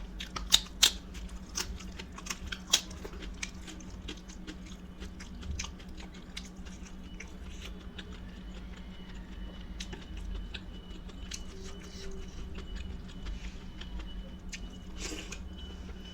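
A person eating close to the microphone: chewing and wet mouth sounds, with a few sharp, loud clicks in the first three seconds and softer small clicks after that.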